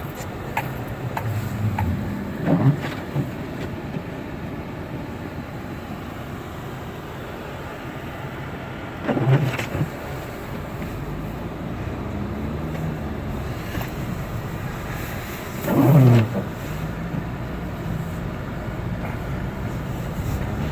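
Steady in-cabin road and engine noise of a Honda Element driving on a snow-covered road on winter tires. Three brief, louder sounds break in about two and a half, nine and a half and sixteen seconds in.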